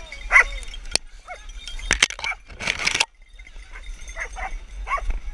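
Hunting dogs barking and yelping in short calls while holding a wounded wild boar at bay, with a burst of scuffling noise around the middle.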